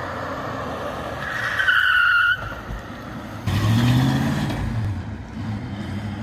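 1965 Plymouth Barracuda on four-wheel drum brakes making a hard test stop: a high tyre squeal of about a second that cuts off suddenly as the car halts. A couple of seconds later the engine revs up and the car pulls away.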